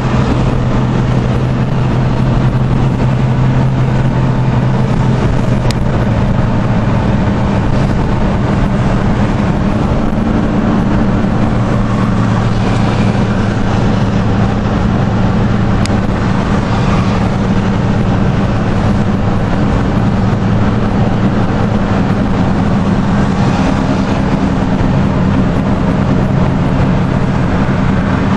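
Car driving at highway speed, heard from inside the cabin: steady road and tyre noise with a low engine drone.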